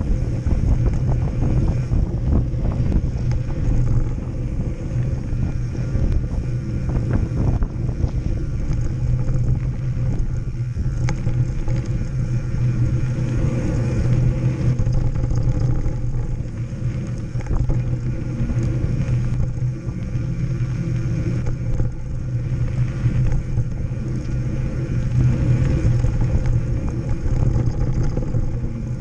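Mountain bike riding down a dirt forest singletrack, heard from a camera mounted on the bike: a continuous low rumble of the tyres rolling over packed dirt, with steady clatter and rattling from the bike over the bumps.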